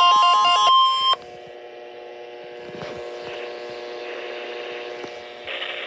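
NOAA Weather Radio 1050 Hz warning alarm tone blaring over the weather-radio receivers' own alternating alert beeps, both cutting off sharply about a second in. Then a quieter steady electrical hum, with radio hiss rising near the end as the broadcast audio returns.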